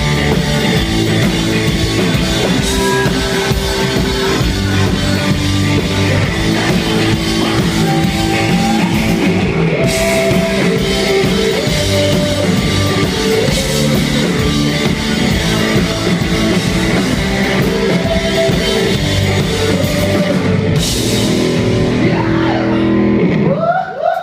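Rock band playing loud through a club PA during a sound check: electric guitar, bass and drum kit, breaking off shortly before the end.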